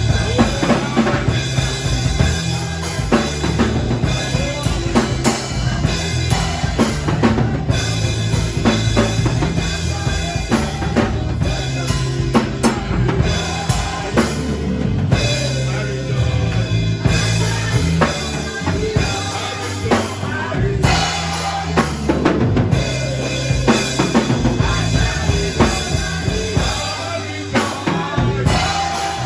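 Music with a full drum kit, bass drum and snare keeping a steady beat over a bass line.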